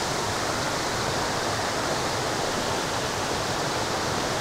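Steady rushing of flowing water over rocks from a mountain stream or waterfall, an even, unbroken wash of noise.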